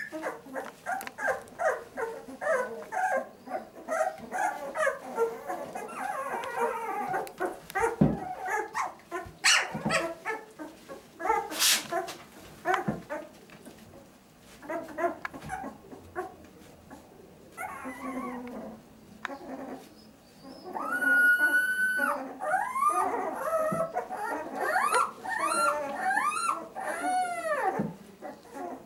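A litter of two-week-old English setter puppies whimpering and squeaking: many short high calls at first, then, past the middle, longer whines that rise and fall in pitch. A few sharp knocks come in between.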